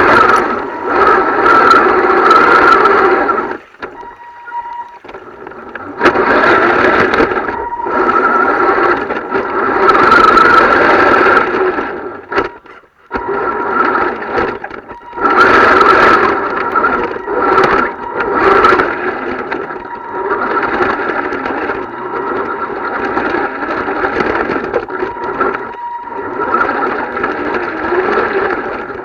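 Radio-controlled truck's motor and drivetrain whining as it is driven in bursts, easing off briefly about four seconds in, again about halfway through and near the end.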